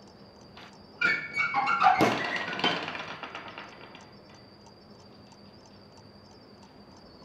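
A strange noise starts suddenly about a second in: a pitched, cry-like sound with falling notes, then a heavy knock at about two seconds that rings and fades away over the next two seconds. A faint steady high whine with soft ticks about three a second runs underneath.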